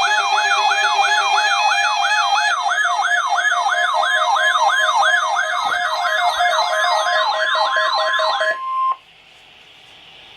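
Weather radio alarm test: an alarm sweeps rapidly up and down, about three times a second, over the steady 1050 Hz National Weather Service warning alarm tone. Near the end the sweeping stops, the steady tone holds for a moment and cuts off, and radio hiss is left.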